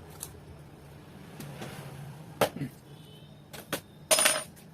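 Laptop's plastic case being pried open: a few sharp clicks and snaps, then a louder clattering crackle near the end. A low steady hum runs underneath.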